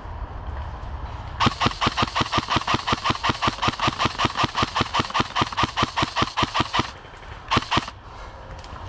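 CYMA Platinum airsoft electric rifle firing a long rapid string of shots, about seven a second, for some five seconds, then two more shots about a second later.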